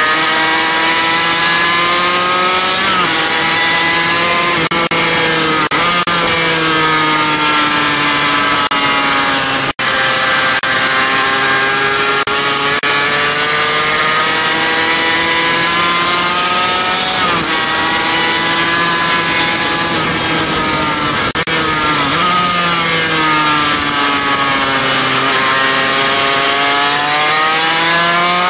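Sport motorcycle engine at speed on track, heard from on board: it revs up and down through the gears, with sudden pitch jumps at each shift and falling pitch into the corners, over a steady rush of wind.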